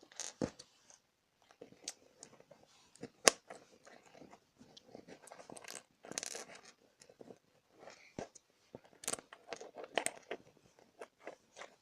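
Plastic Lego pieces being handled: scattered sharp clicks and light rattling as bricks are picked up and fitted, with a short stretch of rustling about six seconds in.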